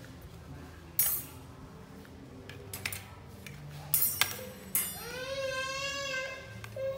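Sharp clicks and clinks as a baby macaque climbing on plastic baskets knocks the baskets and wire clothes hangers, the loudest about a second in and a cluster around four seconds in. From about five seconds in, the baby macaque gives a long, steady, high-pitched call lasting over a second, and starts another just at the end.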